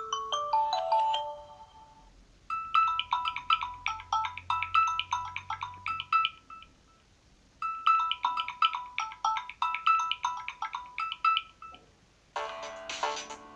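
Samsung Galaxy A12 ringtones. A phrase of quick, high chiming notes plays twice with a pause of about a second between, the way a ringtone loops. It opens on the falling last notes of another ringtone, and near the end a different, fuller ringtone begins.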